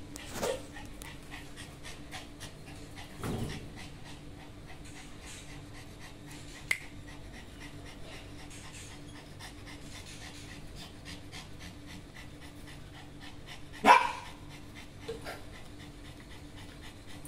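Several small dogs panting quickly and steadily, about four breaths a second. One short, sharp sound, much louder than the panting, cuts in about fourteen seconds in.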